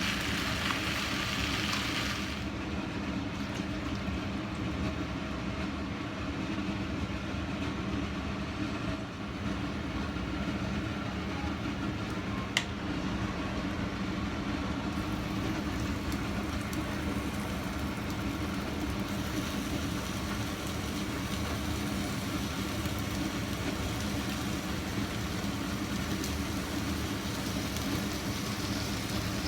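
A steady low mechanical hum, with a hiss of frying that stops about two seconds in and a single sharp click near the middle.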